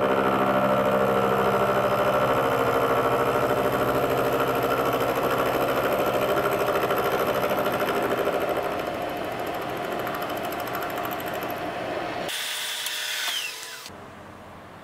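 Milling machine starting with a sudden jump and running steadily while taking a cut along a flat of a hex. About twelve seconds in it is switched off and a falling whine winds down, leaving a faint steady hum.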